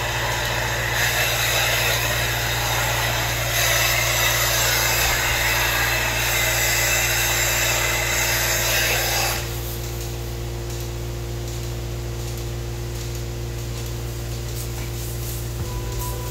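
Milking machine running: a steady low hum from the vacuum system with a loud hiss of air being drawn into the teat cups as they are put on a cow's teats. About nine seconds in the hiss cuts off once the cluster is on, and the steady hum carries on.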